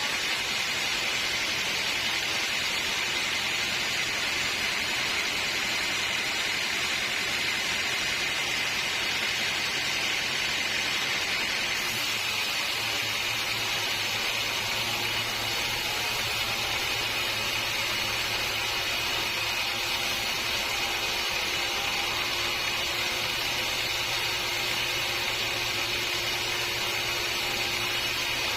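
Sawmill saw running steadily through a redwood log, a continuous even machine noise; about twelve seconds in its tone shifts as a low steady hum comes in.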